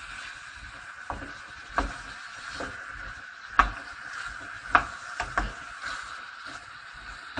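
Wooden spoon stirring chicken and vegetable strips in a non-stick frying pan: irregular knocks and scrapes of the spoon against the pan over a light, steady sizzle of frying.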